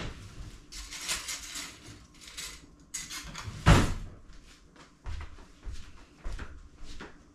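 Kitchen drawer opened and shut while a fork is fetched: scraping and clattering, a loud knock about halfway through, then a few softer thumps.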